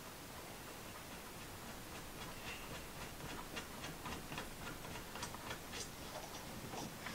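A run of faint, irregular clicks, a few a second, starting about two seconds in, as a knob's screw is turned by hand through a pre-drilled hole in a chest-of-drawers drawer front.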